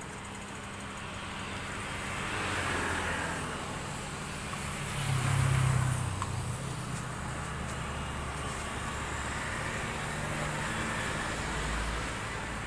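Street traffic going by: motor vehicles pass over a steady low hum, and the loudest passes about five seconds in.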